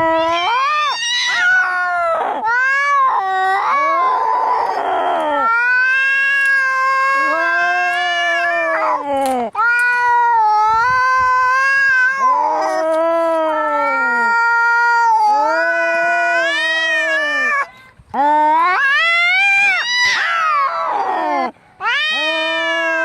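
Angry cats caterwauling: long, loud, wavering yowls that rise and fall in pitch almost without a break, with a harsh hiss about four seconds in.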